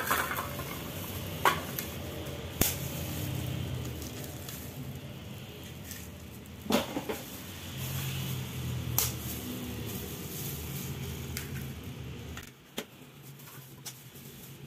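Eggs being cracked into a mixing bowl: a few sharp knocks of shell against the bowl, over a low steady hum that cuts off near the end.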